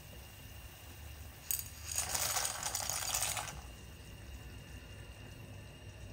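Dry elbow macaroni tipped from a ceramic bowl into a pot of hot soup: a sharp click about one and a half seconds in, then the pasta rattling and splashing in for about a second and a half.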